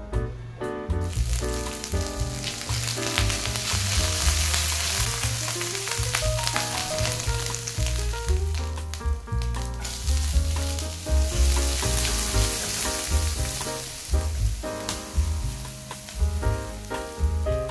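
Hot oil sizzling in a nonstick frying pan as grated ginger and tempering seeds, then chopped onion, fry while a silicone spatula stirs them; the sizzle starts about a second in. Background music with a steady bass line plays under it.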